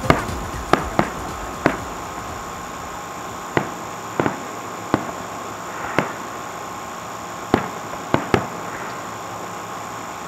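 Aerial firework shells bursting: about eleven sharp bangs at uneven intervals, some in quick pairs, over a steady hiss.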